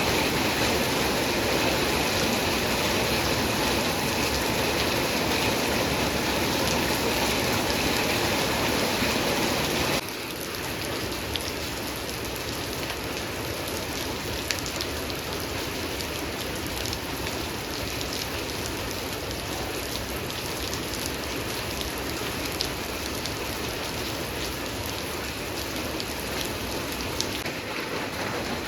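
Steady rain falling, with a sudden step down to quieter rain about ten seconds in. Single drops tick sharply now and then in the quieter part.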